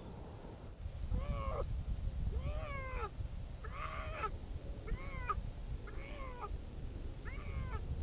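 Bobcat calling: six short calls about a second apart, starting about a second in, each rising and then falling in pitch, over a low rumble.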